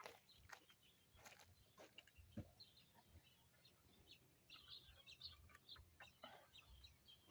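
Near silence: faint scattered clicks and taps, with faint bird-like calls in the background.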